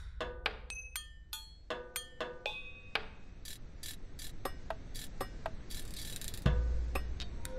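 Electronic backing track for a gesture-percussion piece: a fast, irregular run of sharp clicks and knocks, some with short pitched rings, over a low hum. A hiss comes in just after six seconds, then a deep boom about six and a half seconds in, followed by a held mid tone.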